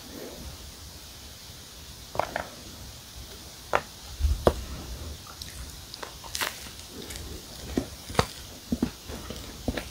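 A marshmallow-filled s'more cookie being pulled apart and broken by hand: scattered sharp crackles and ticks of crumbling cookie, with a low thump about four seconds in.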